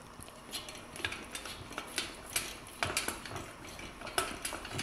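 Light metallic clinks and taps at irregular intervals, a dozen or so, as a dog's nose bumps a metal-framed touch lamp and its shade panels.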